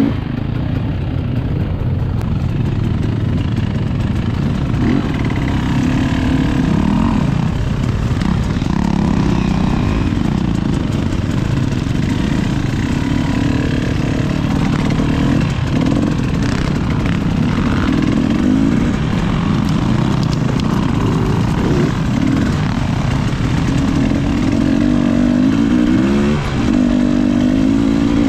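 Dirt bike engine running hard as the bike is ridden, its pitch rising and falling with the throttle, with a brief throttle-off about two seconds before the end.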